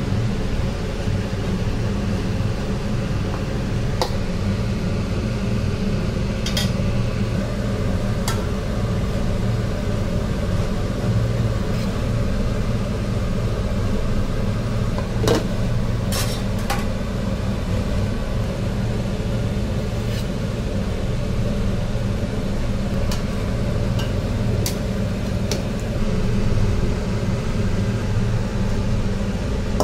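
A steady low mechanical hum runs throughout. Over it, a metal spoon clinks sharply against an aluminium cooking pot about ten times, singly and in quick pairs, as rice and chicken masala are spooned into the pot in layers.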